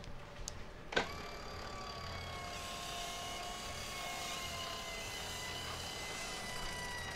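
Electric self-tailing sailboat winch: a sharp click about a second in, then the winch motor runs at slow speed with a steady whine that slowly drops in pitch as it hauls in the mainsail outhaul to unfurl the sail.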